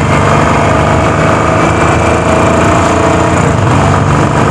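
Motorcycle engine running steadily while the bike cruises along the road, with wind rushing over the microphone.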